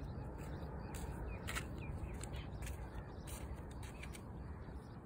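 Small birds chirping in short, scattered calls over a steady low rumble, with a few sharp ticks.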